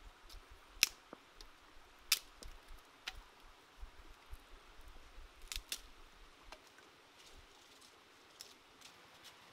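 Dry wooden sticks being broken and handled for firewood: a run of sharp cracks and clacks over rustling twigs, the loudest about a second and two seconds in, dying away after about six seconds.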